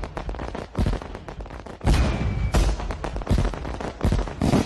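Fireworks going off in rapid succession: dense crackling with several louder bangs, the biggest about two seconds in and near the end.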